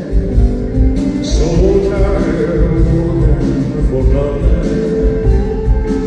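Live band music with a steady beat, horns and bass, and a male singer.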